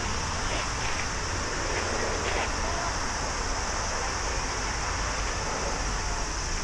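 Airbus A321neo jet engines running as the airliner rolls down the runway on its takeoff run: a steady rushing noise over a deep rumble, heard from the side of the runway.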